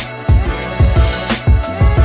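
Background music with a steady, bass-heavy beat.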